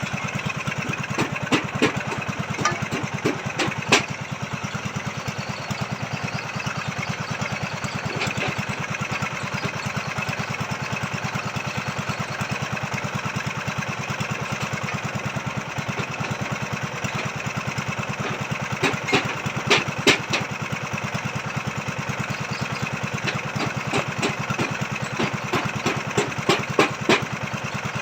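Small engine of a motorized foundation auger drill running steadily, with clusters of sharp knocks and clanks in the first few seconds, about two-thirds through, and again near the end.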